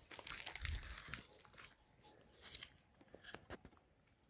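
Dry brushwood crunching and crackling in irregular bursts, with a soft low thump about half a second in.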